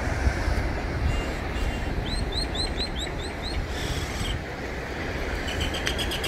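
Steady rush of wind on the microphone, with a low rumble. About two seconds in, a bird gives a quick run of six or so short rising chirps.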